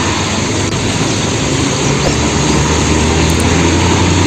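Concrete mixer truck engine running as it drives along a wet road, a steady low hum under an even hiss of wet road and rain. The sound stops abruptly at the end.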